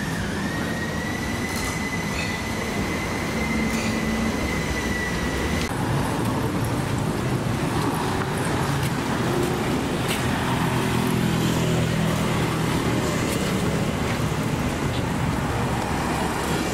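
Street traffic beside a sidewalk: road noise and passing vehicles, with a vehicle engine passing close around the middle. A steady high whine runs for about the first five seconds and cuts off suddenly.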